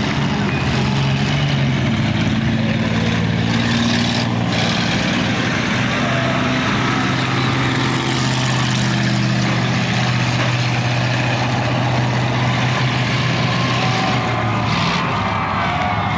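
Demolition derby cars racing in a chain race, their engines running hard at a near-steady pitch.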